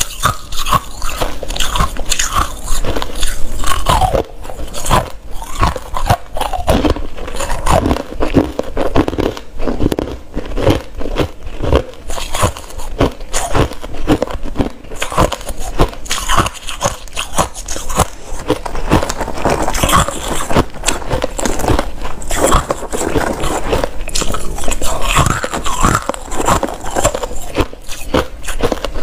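White crushed ice being bitten and chewed: a dense, irregular run of sharp, loud crunches and crackles.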